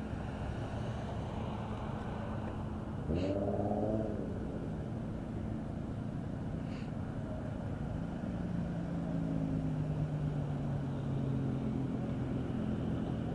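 Car engines running at a car meet. About three seconds in, one engine gives a short rev that rises in pitch. From about eight seconds on, a nearby car's engine runs with a steady low drone.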